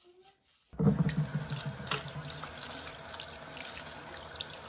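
Water tap turned on about a second in, water running steadily into a sink with small splashes.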